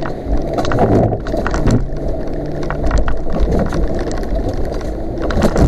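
Off-road vehicle engine running under load while driving through deep puddles, with water splashing over the windshield and body. Frequent knocks and rattles throughout.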